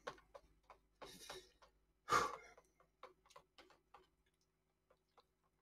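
Chopsticks stirring noodles in a paper ramen cup: faint, irregular light clicks and taps, with two short louder noises about one and two seconds in.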